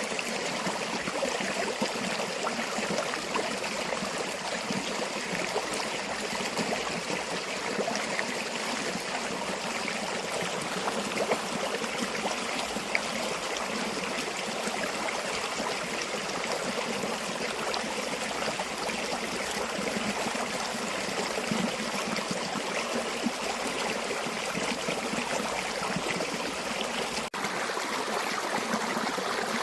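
River water flowing steadily, with a momentary dropout near the end.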